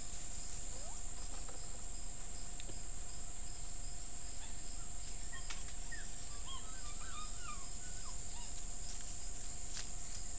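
Steady hiss with a faint constant whine from a trail camera's microphone, with a scatter of faint, quick chirps in the middle.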